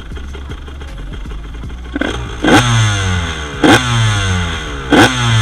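1999 Honda CR125 single-cylinder two-stroke engine, breathing through a Pro Circuit Platinum expansion pipe and R304 silencer, idling and then blipped sharply about four times from about two seconds in, the revs falling back quickly after each blip.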